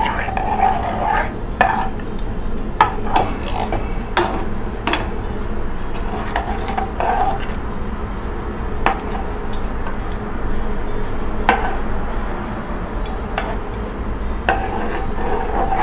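A steel spoon stirring thick dal and greens in an aluminium pot, with irregular clinks and scrapes against the metal sides over a steady low hum.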